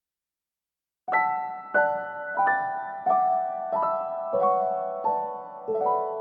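Slow, gentle piano music: struck notes that fade, one about every two-thirds of a second, starting about a second in.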